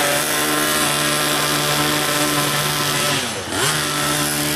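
Small two-stroke engine of a gas RC truck, rebuilt with a 30.5 cc big-bore kit, running at steady high revs during break-in. About three seconds in the revs drop briefly, then pick back up.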